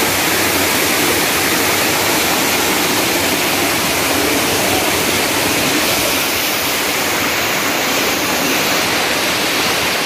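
Small waterfall cascading over boulders into a rocky pool: a steady rush of water.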